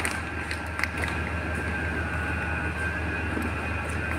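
Steady drone of machinery running, with a constant faint high whine over it, and a few light knocks in the first second.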